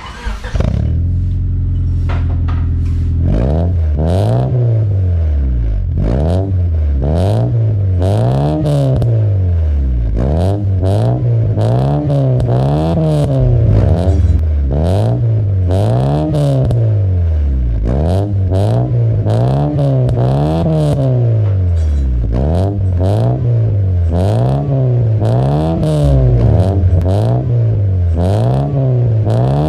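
2000 Honda Civic's four-cylinder engine heard through an aftermarket catback exhaust: it idles for about three seconds, then is revved again and again in quick rises and falls, about one rev every second and a half.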